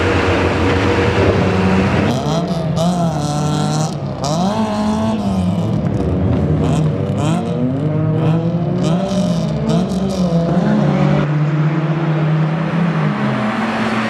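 Rallycross cars' engines revving hard on the track, the pitch climbing and dropping again and again through gear changes as cars pass, with more than one engine heard at once. A steadier engine drone holds in the first two seconds and again near the end.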